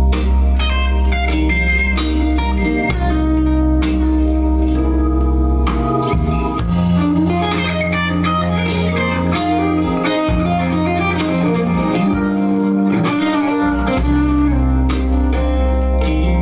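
Electric guitar improvising bluesy lead lines over a backing track that has a bass line and a steady beat.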